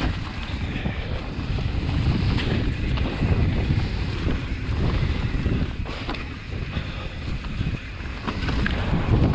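Wind buffeting the microphone of a mountain bike riding fast downhill, a steady low rumble mixed with tyre noise on the dirt trail. A few short clicks and knocks come from the bike.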